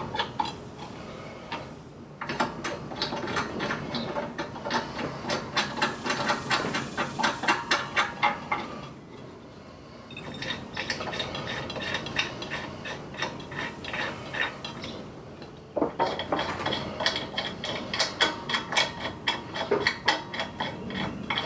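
Ratchet wrench clicking in rapid runs as lug bolts are run down onto a donut spare wheel, in three spells with short pauses between.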